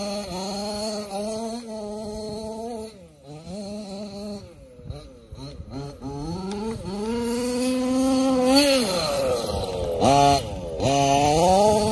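Petrol two-stroke engine (Zenoah G320) of a 1/5-scale Losi 5ive-T RC buggy with a silenced big-bore exhaust, revving up and down as it is driven. It drops quieter a few seconds in, then climbs in one long rise in revs, with quick throttle blips near the end.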